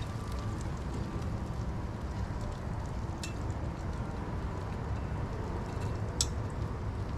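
Food sizzling on a Blackstone propane flat-top griddle over a steady low rush of noise, with two short sharp metal taps about three and six seconds in.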